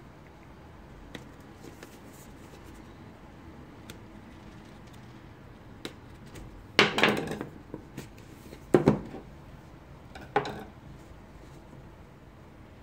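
Handling noise from a smartwatch, its strap and its hard display packaging: scattered faint ticks, then past the middle three short, loud bursts of clattering and knocking, each a second and a half to two seconds apart.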